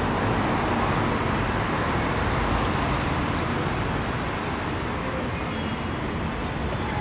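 Steady city street noise with road traffic running.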